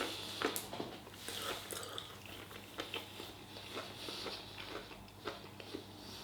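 A person chewing and biting into chicken, with irregular small clicks and mouth sounds.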